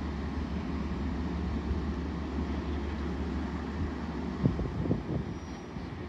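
A Metro-North push-pull train standing at the platform gives a steady low engine rumble. A couple of low thumps come about four and a half and five seconds in.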